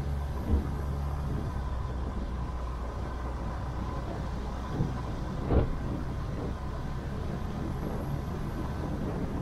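Vehicle engine running steadily with road rumble, heard from inside the vehicle, and two brief thumps, one about half a second in and one about five and a half seconds in.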